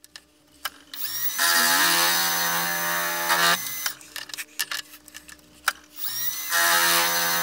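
Milling machine's bullnose end mill cutting a flat into a brass knob, a steady pitched cut of about two seconds starting about a second and a half in. Then come clicks and knocks as the square collet block is turned to the next side, and a second cut starts near the end.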